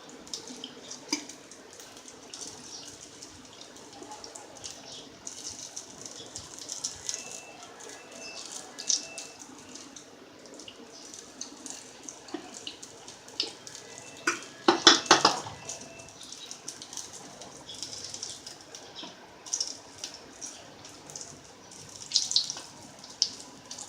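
Prawn pakodi deep-frying in hot oil: a steady sizzle with frequent small crackles and spatters, and a brief louder clatter about fifteen seconds in.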